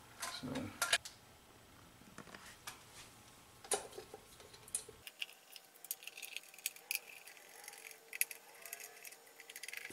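Faint, scattered clicks and light knocks of hands handling a metal pushbutton control box on a milling machine, with a closer run of small ticks in the second half.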